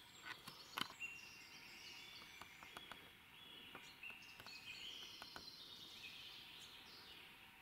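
Faint chorus of forest songbirds, several birds whistling and singing at once, with a few scattered faint clicks.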